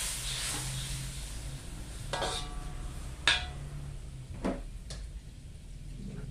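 A few metal clinks and knocks of a spatula and pots against a steel wok, the loudest about three seconds in. The sizzle of water just poured into the hot wok dies away in the first second or so. A low steady hum runs underneath.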